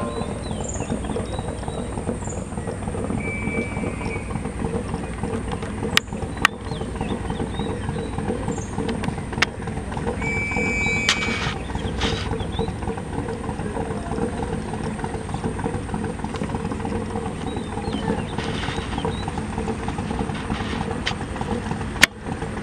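A steady low mechanical drone with a held hum, broken by a few sharp clicks.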